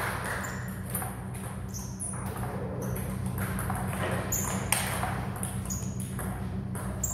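Table tennis ball and bats during a rally: a string of sharp clicks and pings at uneven spacing as the ball bounces off the table and is struck, over a steady low hum.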